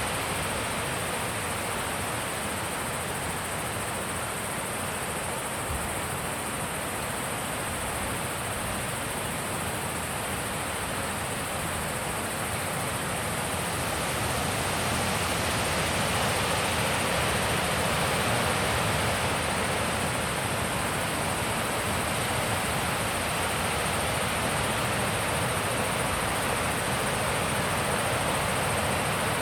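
Wind blowing, a steady rushing that grows louder about halfway through.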